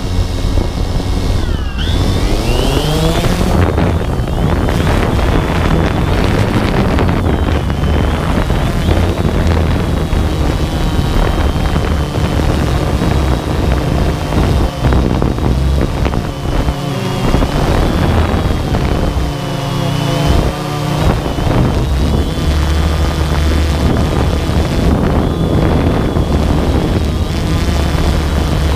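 DJI Phantom 2 quadcopter's electric motors and propellers, heard from the GoPro mounted on the drone: a loud steady buzz with a high whine. The whine rises in pitch in the first few seconds as the drone takes off, then wavers up and down as it flies, with wind rushing over the microphone.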